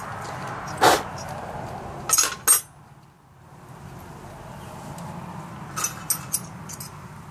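Steel wrenches clinking and tapping against metal as they are worked on the battery terminals, set down on the tractor's sheet-metal engine shroud and picked up again: a few sharp clinks a couple of seconds in and more around six seconds. A short, louder knock-like sound comes about a second in.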